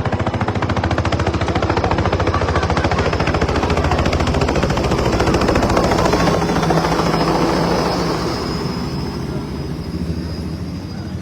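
Helicopter coming in to land, its rotor blades chopping rapidly and loudly. The chop grows to a peak about halfway through, then eases off near the end.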